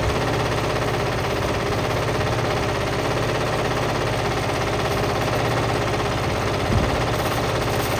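Whirlpool washing machine running with heavy bricks in the drum: a steady, dense rattling and banging of the bricks against the drum over the machine's constant low hum, with a slightly louder knock near the end.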